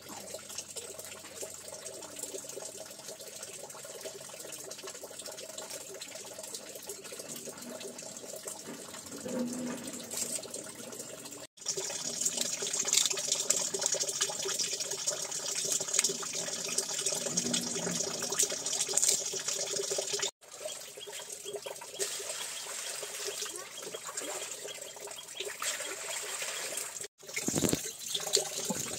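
Running water, a steady rushing trickle, cut off abruptly three times and louder for a stretch in the middle.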